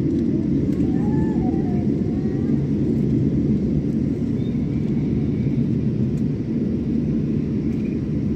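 Airliner's steady low rumble during take-off, with faint voices under it.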